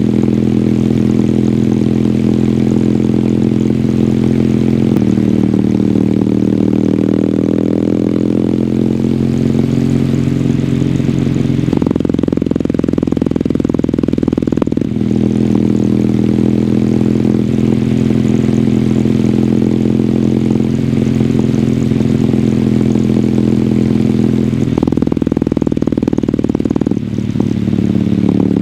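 Kawasaki W800's air-cooled parallel-twin engine running through its stock exhaust while riding. It holds a steady note that climbs gradually about a quarter of the way in. The note turns rough and blurred for a few seconds twice, about twelve seconds in and near the end, as the throttle changes.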